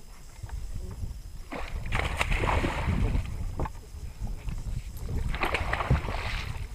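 Hooked musky thrashing and splashing at the surface beside the boat as the landing net goes into the water: two bouts of splashing, one starting about a second and a half in and another around five seconds in.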